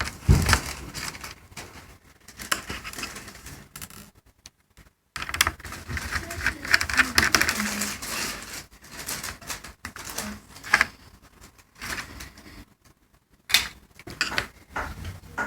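Irregular clicks and rattles of an HP ProBook 4710s laptop's plastic parts being handled during disassembly, in clusters that are busiest in the middle stretch.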